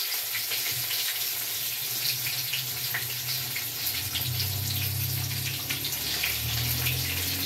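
Flour-dredged chicken wings frying in hot oil in a cast-iron skillet: a steady sizzle with many small crackles and pops. A low hum joins about four seconds in.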